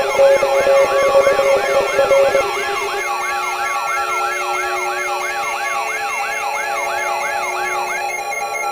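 Electronic siren with a fast repeating wail, about two cycles a second, each cycle jumping up and then falling in pitch. Steady tones under it cut out about two and a half seconds in, and the wailing stops near the end.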